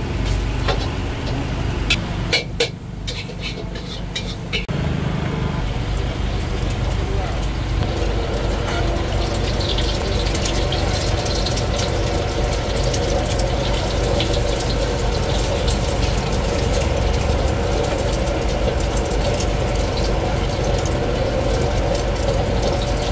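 Gas wok burner running with a steady rumble under a steel wok. In the first few seconds a metal spatula scrapes and knocks against the wok; after that an egg fries in hot oil in the wok.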